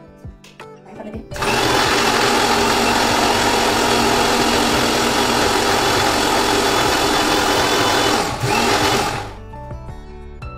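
Electric mixer grinder running with its steel jar of raw-mango pulp and spices. It starts about a second in, dips for a moment near the end, runs again briefly, then stops shortly before the end.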